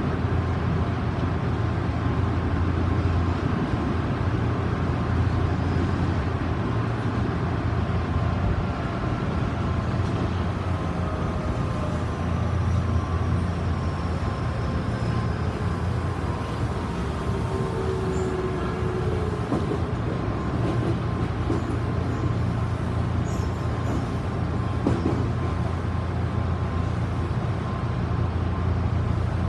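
Odakyu 2000 series electric train running: a steady low rumble from the motor car, with faint whining motor tones that slide slowly lower through the middle. This car's traction motors are known for an unusual, scream-like noise.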